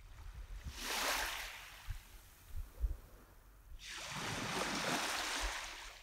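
Small waves washing up onto a pebbly sand beach: a surge of surf wash about a second in, then a longer one from about four seconds in, with a low rumble underneath.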